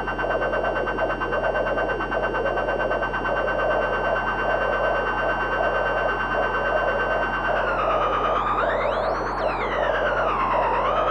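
Homemade Negistor Cracklebox drone and noise generator run through a Be-Filter dual auto-filter: a steady high whining drone over a pulsing crackling noise, with a low steady hum beneath. About three-quarters of the way in, the drone drops in pitch, then sweeps up and back down like a siren.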